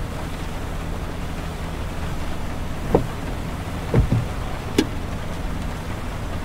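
Steady in-car road noise: tyres on wet highway pavement with a low engine hum. Between about three and five seconds in come three short knocks, the loudest in the middle, as the windshield wipers sweep the glass.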